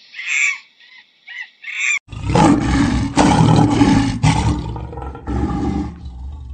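A few short high chirps, then from about two seconds in a lion roaring, loud and rough, easing off somewhat near the end.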